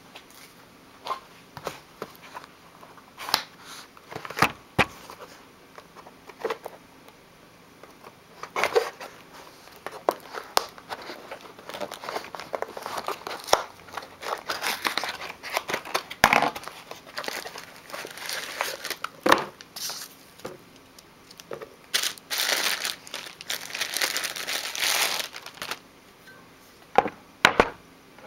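A shipping package being unpacked by hand: packing material crinkling and tearing in irregular bursts, with scattered sharp clicks and knocks, the busiest rustling in the second half.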